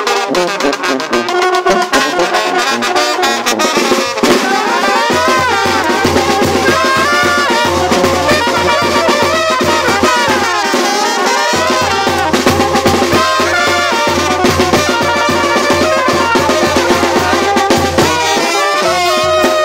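Lively band music for a traditional dance, with brass melodies of trumpet and trombone over it; a steady low drum beat comes in about five seconds in.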